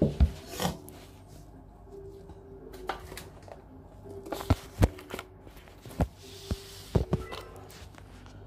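A handful of sharp knocks and bumps amid rustling and rubbing, with faint background music; no vacuum motor is running.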